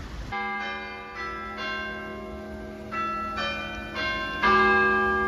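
Derry Guildhall's clock-tower bells chiming a tune in two four-note phrases, each note ringing on into the next. The last and loudest strike comes near the end.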